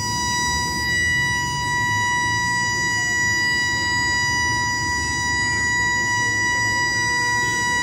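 A steady, unchanging high-pitched tone over the low murmur of a gathered outdoor crowd; a second, lower tone joins near the end.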